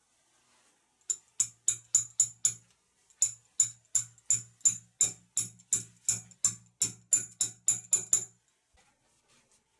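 An adjustable wrench tapping at the fixings in the wall: sharp, ringing metallic taps, about three a second, a short run of six, a brief pause, then a longer steady run that stops a little before the end.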